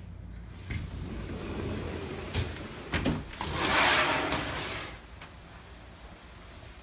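A sliding screen door is handled and rolled open along its track: a few knocks, then a rush of rolling noise about halfway through that ends in a click.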